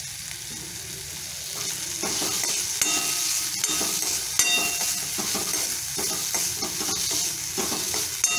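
Shredded boiled chicken sizzling in hot oil and ginger-garlic paste in a metal kadhai, stirred with a metal spoon that scrapes and clinks against the pan. The frying grows louder about two seconds in.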